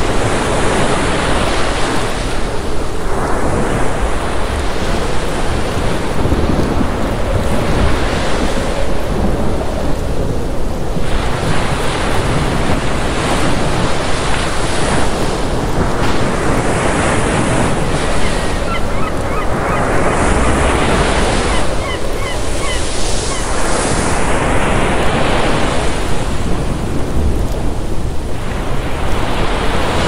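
Heavy ocean surf breaking and washing against a seawall, a constant rushing wash that swells and eases in surges every few seconds.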